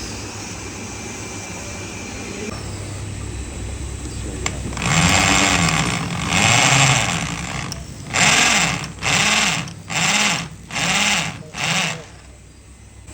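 A tool working wood: a long loud stretch, then five short strokes about a second apart, each rising and falling in pitch.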